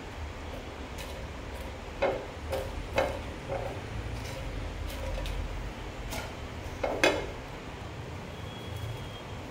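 A silicone spatula stirs dry red chillies as they roast in a nonstick frying pan, scraping and knocking against the pan: a cluster of knocks from about two to three and a half seconds in, and a louder one near seven seconds, over a low steady hum.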